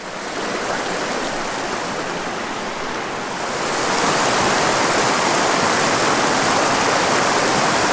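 Shallow, boulder-strewn mountain stream rushing through whitewater riffles: a steady rush of water that becomes louder and hissier about three and a half seconds in.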